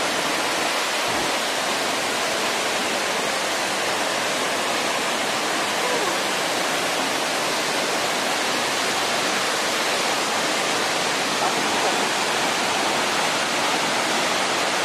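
Waterfall: a steady, unbroken rush of water pouring over rock.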